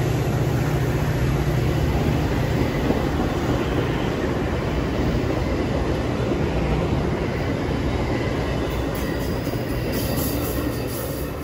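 Metra bilevel gallery passenger cars rolling past at close range: a steady rumble and rattle of steel wheels on rail that eases slightly as the train moves off, with faint high-pitched wheel squeaks near the end.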